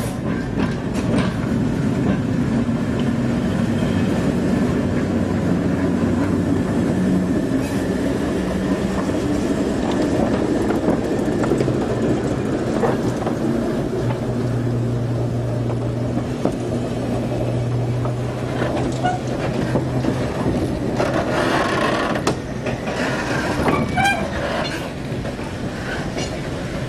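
Diesel shunting locomotive engine running steadily as it moves slowly along the track. A few short squeals and knocks come near the end.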